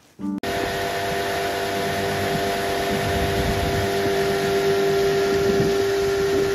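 A small boat's outboard motor running at a steady speed as the boat moves along, a steady hum with a low rush under it that cuts in about half a second in.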